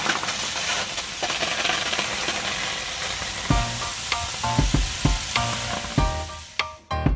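Wood fire burning in a steel pail can, a steady crackling hiss. About halfway in, a piece of music with plucked notes and bass thumps starts over it.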